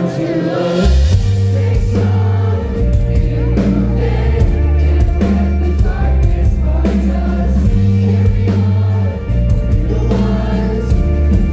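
Live post-hardcore band playing loud through a PA: sung vocals over bass guitar, electric guitar and drums, with long held bass notes and steady drum hits.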